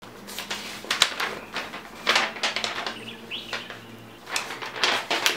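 Sheets of paper rustling and crinkling as they are handled, in several irregular bursts.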